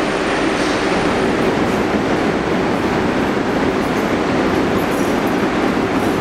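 Steady rumble of a New York City subway train running in the station, even and unbroken.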